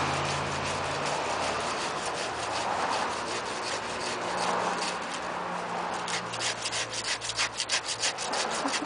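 Hand saw cutting through a deer's leg, the blade rasping back and forth through hide and bone. About six seconds in, the strokes turn short and quick, several a second.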